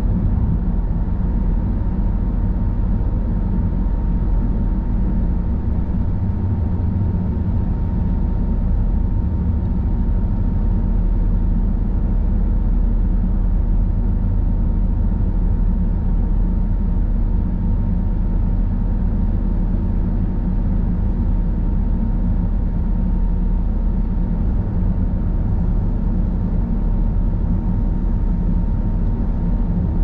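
Car driving at a steady speed: a constant low rumble of tyres and engine, with a faint steady high whine.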